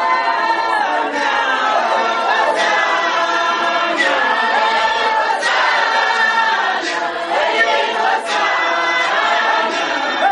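A congregation singing together unaccompanied in a loud chorus of many voices, with a sharp beat, like a clap or a knock, about every second and a half.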